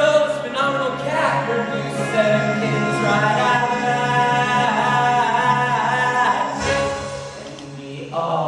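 Show-tune singing: voices holding long notes with a wavering vibrato over musical accompaniment, dropping away about seven seconds in.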